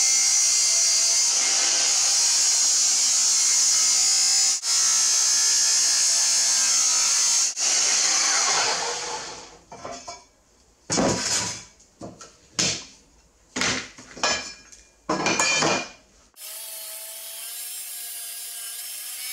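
Abrasive chop saw cutting through perforated square steel tubing: one long continuous cut of about nine seconds, then a run of short cutting bursts.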